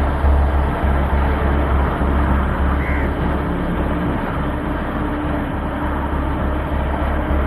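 Wind buffeting the microphone of a chest-mounted action camera on a moving road bike: a steady, heavy low rumble that pulses unevenly, with road noise underneath.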